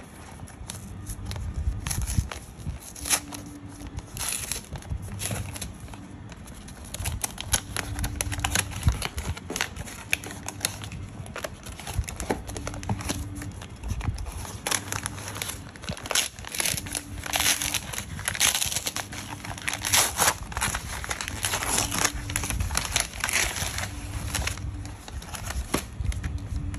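Paper gift wrapping handled and pulled off a cardboard box by hand: irregular crinkling and rustling with some tearing, busiest and loudest in the second half.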